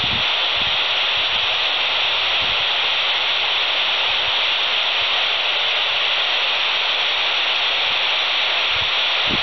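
Steady FM static hiss from a Quansheng TG-UV2 handheld radio's speaker, squelch open on 145.800 MHz with no voice coming through from the ISS.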